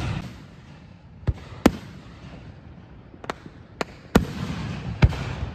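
Aerial firework shells bursting: about six sharp bangs at irregular intervals, each trailing a low rumble. Just after four seconds in, a burst is followed by a hissing crackle.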